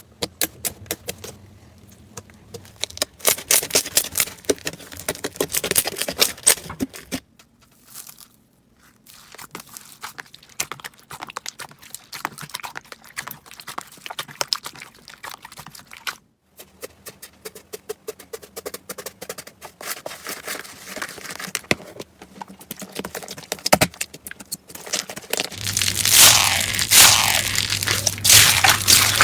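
Slime being squished and worked by hand, a dense run of crackles, pops and crunches, in several short segments that change abruptly about 7, 16 and 26 seconds in, the last one louder.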